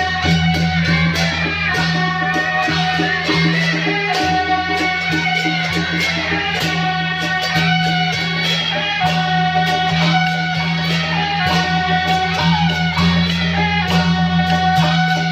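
Loud music with a melody and a steady beat, over a strong steady low hum.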